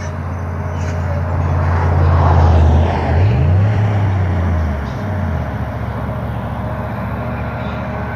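Heavy engine droning, growing louder over the first two seconds or so, its pitch bending up and back down around the middle, then fading to a lower steady hum.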